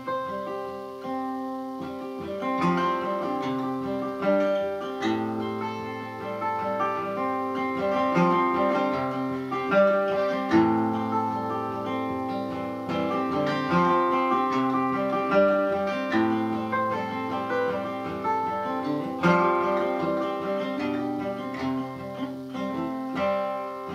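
Instrumental break of a song, led by acoustic guitar playing plucked and strummed chords and melody, with no singing.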